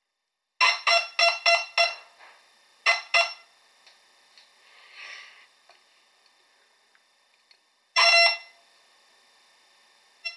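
Pulse induction metal detector giving audio target signals through active speakers as metal objects pass its search coil: five quick beeps in about a second and a half, two more a second later, then a longer beep about eight seconds in and a short blip near the end.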